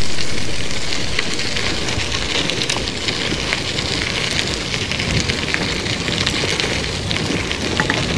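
Wind and rolling noise from a moving bicycle: a steady hiss full of small crackling ticks, louder at the start and settling within the first second or two.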